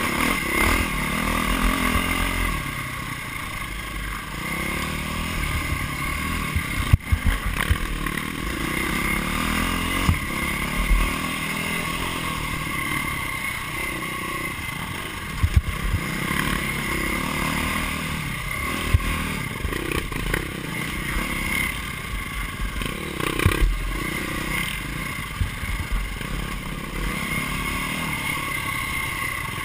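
Onboard dirt bike engine revving up and down while riding a rough trail, with a few sharp knocks from the bike jolting over bumps.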